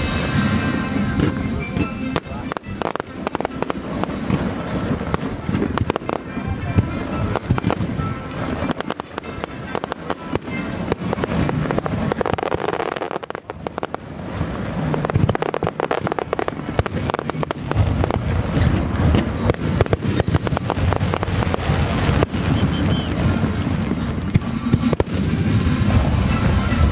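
Fireworks display: shells launching and bursting in a rapid, continuous barrage of bangs and crackles, many each second, easing briefly about halfway through before building again.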